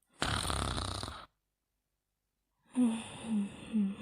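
A sleeper snoring: one loud, rough snore lasting about a second, then a run of short wheezy squeaks about twice a second on the next breath.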